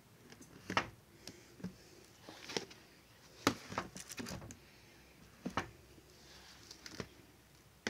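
A plastic yogurt tub being handled: a handful of light clicks and knocks of the plastic lid and container spread over several seconds, with a little soft rustling.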